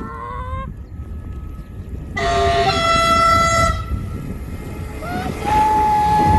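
Greater Anglia train's horn sounding: a loud blast of about a second and a half beginning about two seconds in, then a second, single-note blast from about five seconds in, held steady.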